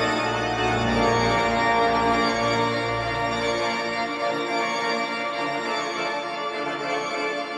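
Pipe organ playing sustained full chords, with a deep pedal bass that drops out about four seconds in while the upper notes hold on.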